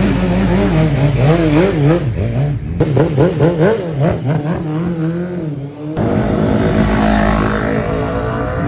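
Superbike racing motorcycle engines revving hard, the pitch rising and falling quickly with throttle and gear changes, with a few sharp cracks about three to four seconds in. About six seconds in, the sound cuts abruptly to a steadier, higher engine note.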